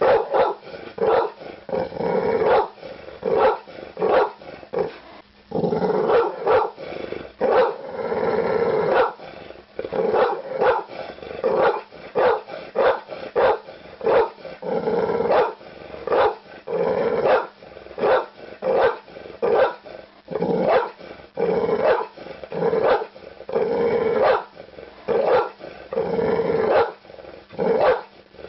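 Pit bull barking over and over, about one to two barks a second, with a couple of longer drawn-out calls about six and eight seconds in.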